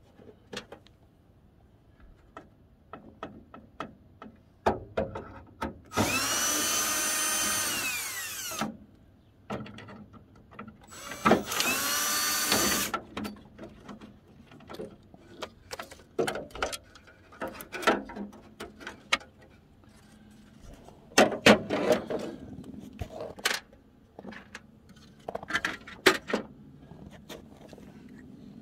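Cordless drill running in two long bursts, about two and a half seconds and then about a second and a half, working on the headlight fasteners at a pickup's grille, its whine winding down as each burst ends. Short clicks and knocks of handling come before, between and after the bursts, a few of them loud.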